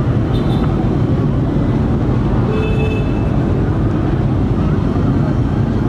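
Steady low rumble of busy city street ambience, with a brief high-pitched tone about halfway through.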